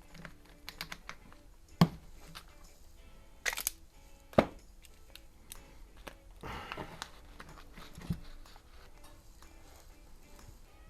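A few sharp clicks and knocks from objects being handled, loudest about two and four and a half seconds in, with a rustle around six and a half seconds and faint music underneath.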